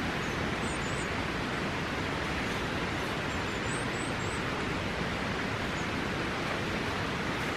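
Steady rushing outdoor noise, even and unbroken, with a few faint high chirps about a second in and again around four seconds in.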